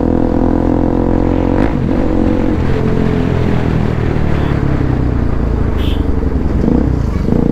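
Bajaj Pulsar NS200's single-cylinder engine running through a full-system Akrapovic exhaust, heard from the rider's seat while riding slowly. The note is steady at first, then wavers up and down with the throttle from about two seconds in.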